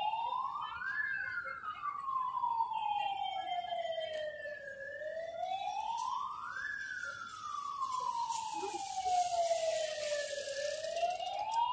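Electronic siren wailing in a slow, even cycle: each wail rises over about two seconds and falls over about four, and the cycle repeats about every six seconds at a steady level.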